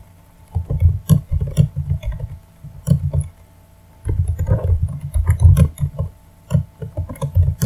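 Computer keyboard typing: irregular runs of key clicks, each keystroke with a dull low thump, broken by a short pause partway through.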